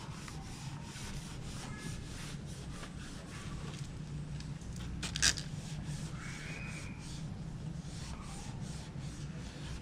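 Cloth rag rubbing and wiping over the plastic fairing of a Suzuki Raider 150 Fi motorcycle, scrubbing off sticky leftover decal adhesive. A low steady hum runs beneath, and there is one brief sharp noise about five seconds in.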